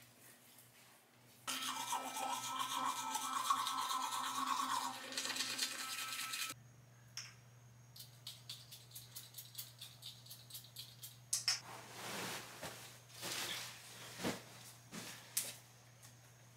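Electric toothbrush buzzing for about five seconds, then it stops abruptly. Afterwards come a run of faint clicks and some soft rustling.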